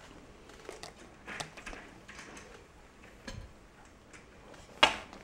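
Scattered light clicks and knocks, with one sharper knock a little before the end.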